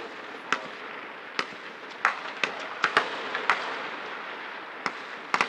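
Small-arms fire from a rifle squad: about a dozen sharp shots at irregular intervals, with a quick cluster near the end.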